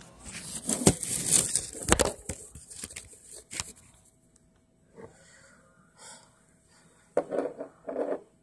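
Rustling and knocking of the recording device being handled, with sharp clicks, loudest in the first few seconds. Near the end comes a quick run of short rhythmic sounds, about three a second.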